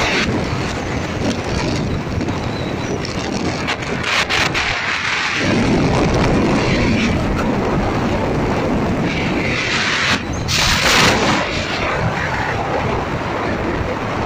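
Wind and road noise of a moving vehicle: a steady rushing hiss that swells louder for a couple of seconds about ten seconds in.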